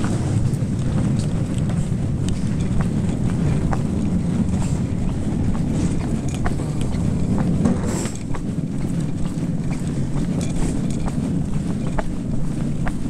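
Footsteps on a paved road at a walking pace, under a steady low rumble of wind on the microphone.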